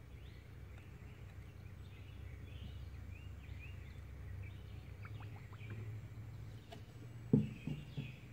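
Faint birds chirping over a low steady hum, with a few short knocks near the end.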